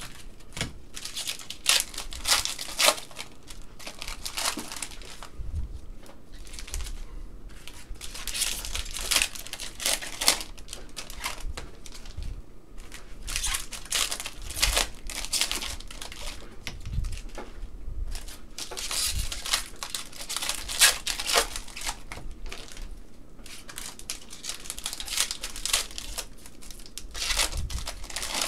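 Crinkling and rustling of trading-card pack wrappers as packs of 2021 Panini Contenders basketball cards are torn open and the cards handled, in repeated short bursts.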